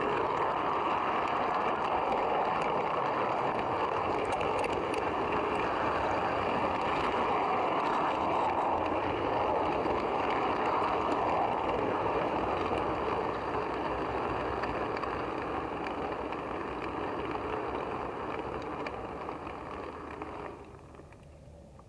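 Model train coach wheels and locomotive running along the track in a steady rumble, heard from on board. The rumble eases as the train slows, then falls away sharply about twenty seconds in as it comes to a stop.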